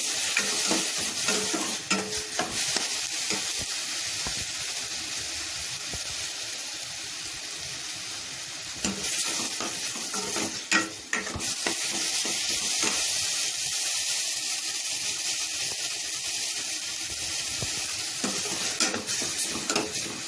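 Ground spice paste frying in hot oil in a kadai, a steady sizzle, with the spatula now and then scraping and knocking against the pan as it is stirred.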